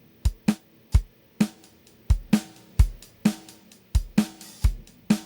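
Drum loop of kick, snare and hi-hat hits, each ending short, played through the NoiseMaker Transplit transient shaper plug-in, which trims the hits' ringing tails.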